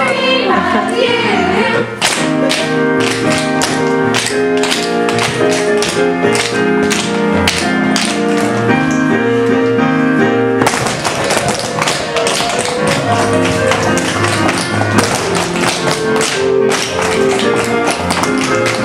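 Tap dancing: rapid, crisp tap-shoe strikes in quick rhythmic runs over accompanying music, starting about two seconds in.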